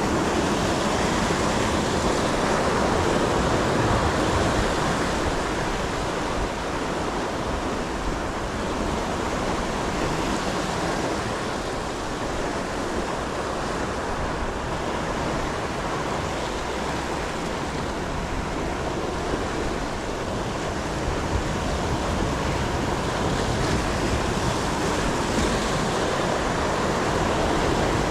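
Ocean surf washing on the shoreline, a steady rush that swells and eases slowly, with some wind buffeting the microphone.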